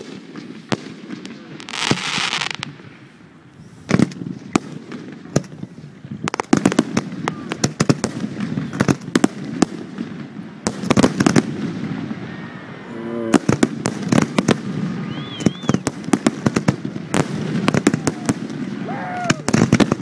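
Fireworks display with mortar-fired aerial shells bursting overhead. A hiss comes about two seconds in, then from about six seconds on the bangs come thick and fast as many shells go off together.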